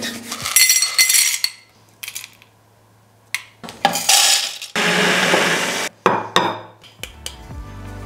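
Coffee beans rattling in a stainless steel dosing cup and pouring into a burr grinder's hopper, then about a second of steady noise that cuts off suddenly.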